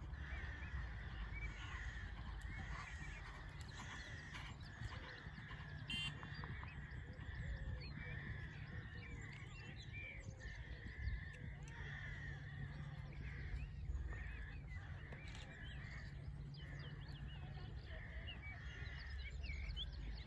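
Birds calling throughout in many short chirps and calls, over a steady low rumble.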